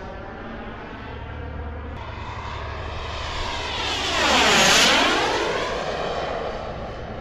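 KingTech K102 turbine of a model MB-339 jet flying a low pass: the turbine sound swells to a peak about four and a half seconds in as the jet goes by, then fades away.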